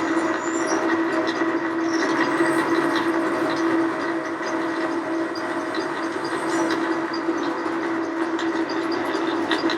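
Electric drill running steadily at a constant pitch, drilling a hole in a Model T generator's brush-holder gasket for a new tube rivet.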